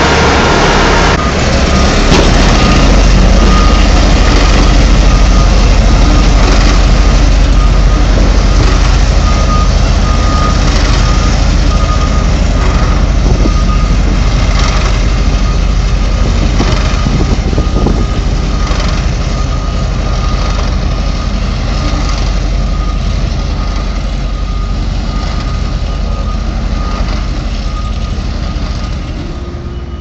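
Heavy road-works machinery running steadily, a truck's diesel engine noise with a high beep repeating in short pulses, like a reversing alarm. The noise eases off slowly over the last several seconds.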